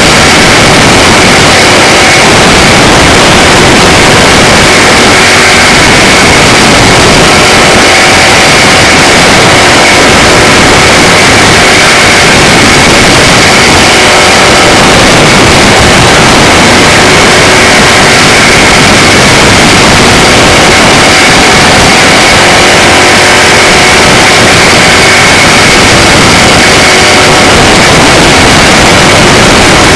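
Microd race car engines running steadily at racing speed, picked up by an onboard camera. The sound is overloaded and distorted, a dense steady din with a few constant tones running through it.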